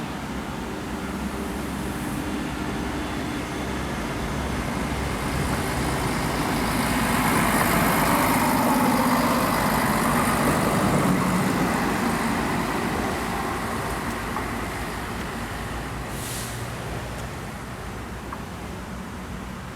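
Diesel train running past, its engine note and rolling noise swelling to a peak about halfway through, then slowly fading.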